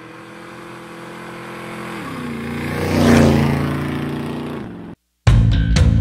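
A motor vehicle engine passes by: it grows louder, its pitch drops about two seconds in as it goes past, then it fades away. After a brief gap, loud music with drums and guitar starts near the end.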